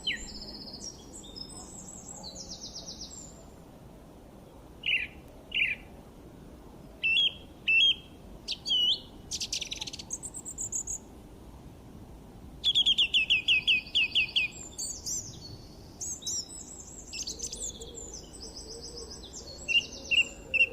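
Birds chirping and singing: short separate chirps, buzzy trills and, about two-thirds of the way in, a fast run of repeated notes, over a faint steady background hiss.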